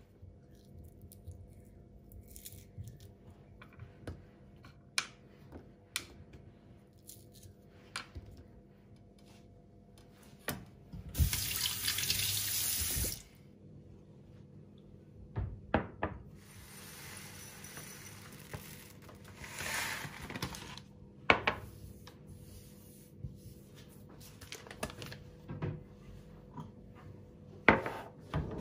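Water tap running into a sink: a strong gush for about two seconds near the middle, then a gentler flow for several seconds, among scattered light clicks and knocks.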